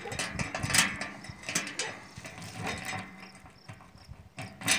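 Metal key clicking and rattling in a stiff lock as it is jiggled and turned, in irregular sharp clicks, the key not catching.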